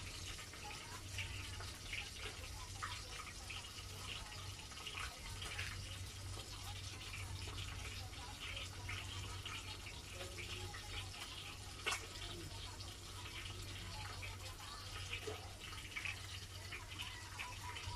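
Fish frying in hot oil: a steady sizzle with many small crackles and pops, and one sharper pop about twelve seconds in. A low steady hum runs underneath.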